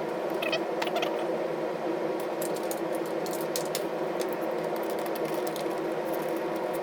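Scattered light metallic clicks and taps as bolts, washers and lock nuts are fitted by hand to a steering column, over a steady background hum.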